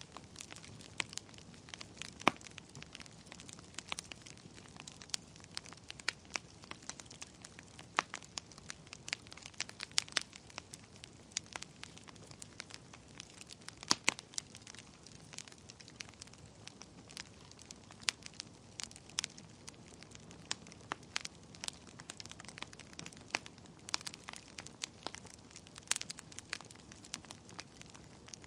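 Wood fire in a fireplace crackling: a low steady hiss with frequent sharp, irregular pops and snaps.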